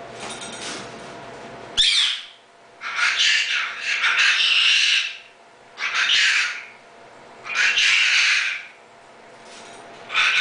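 Goffin's cockatoo giving a run of loud, harsh squawks: a short one about two seconds in, a long drawn-out one, then three more spaced a second or so apart, the last near the end.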